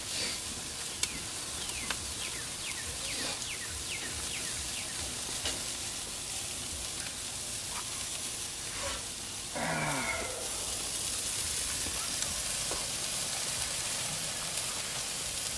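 Chicken wings and leg quarters sizzling over hot charcoal on a grill grate, a steady hiss that grows a little louder about two-thirds of the way in. A few sharp clicks come from metal tongs turning the pieces.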